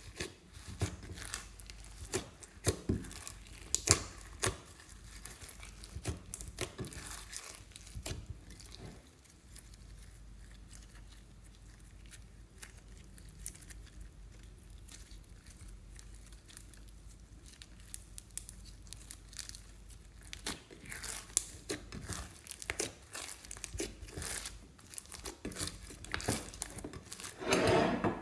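Clear slime full of glitter, sequins and foam beads being kneaded and stretched by hand: rapid sticky clicking and crackling, sparser in the middle stretch, with a louder burst near the end.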